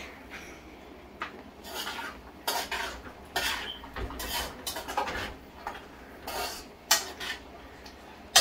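A spoon scraping and knocking against a cooking pot as frying bora (long beans) are stirred, in a string of separate, uneven strokes about once or twice a second.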